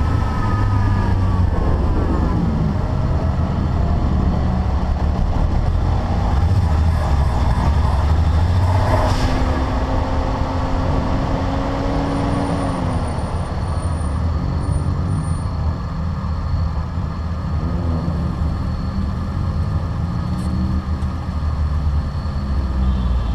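Car driving: steady engine and road noise, the engine note falling near the start, holding level for several seconds, dropping again about halfway through and rising and falling near the end as speed changes.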